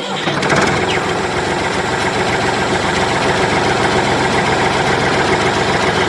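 Tractor engine idling steadily, a low, even, continuous run.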